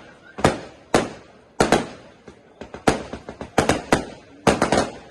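Fireworks display going off: about ten sharp bangs of bursting shells in quick, irregular succession, some in close clusters, each trailing off in a short echo.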